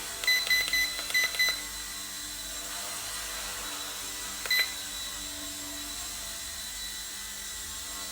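Radio transmitter trim beeps: seven quick, short, high beeps in the first second and a half, then one more about four and a half seconds in, as the trim is stepped to stop the drift forward and to the left. Under them runs the steady hum of the Eachine E129 micro helicopter hovering.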